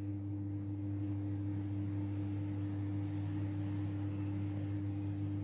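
Steady low hum with one steady higher tone over faint hiss. The stirring of the dry powder is not clearly heard.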